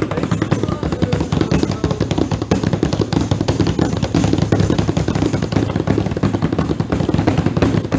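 Several people's hands slapping flat on a tabletop together, marking a flamenco compás rhythm as a group, with many rapid, overlapping slaps.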